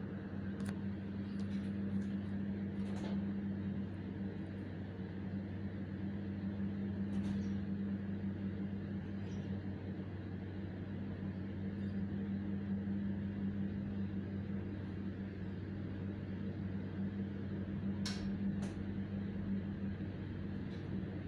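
Steady low hum inside a train's passenger coach, with a few short clicks, two of them close together near the end.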